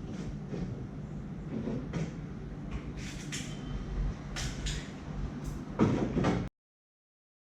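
Hands rubbing, kneading and tapping on a head and hair close to the microphone during a head massage, a low rumble broken by short, irregular strokes, louder near the end. The sound cuts off suddenly shortly before the end.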